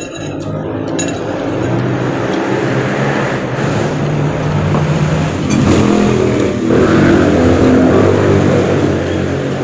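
A motor vehicle's engine running, growing louder about six seconds in.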